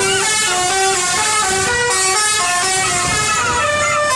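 Telolet bus horn, a multi-tone air horn, playing a continuous tune of short notes that step up and down without a break.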